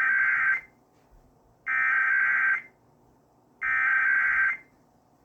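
Emergency Alert System SAME header: three bursts of warbling digital data tones, each about a second long and about a second apart, that encode the start of a Required Monthly Test alert.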